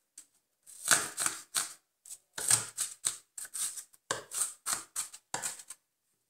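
Kitchen knife rapidly chopping onion on a wooden cutting board: a quick run of sharp knife strikes, about three or four a second, stopping just before the end.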